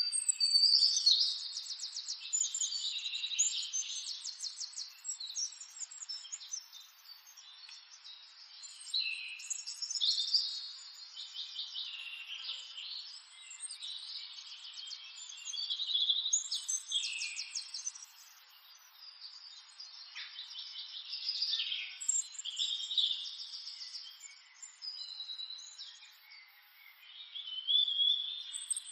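Songbirds singing: several birds chirping and trilling in short repeated phrases, with rapid trills every few seconds.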